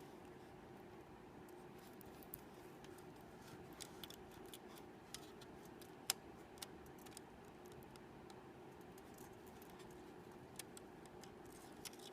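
Faint, scattered small clicks and ticks of close-up handwork, with one sharper click about six seconds in, over a steady low hum.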